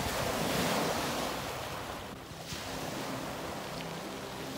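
Sea waves washing ashore, a wash that swells in the first second and eases off, with wind on the microphone.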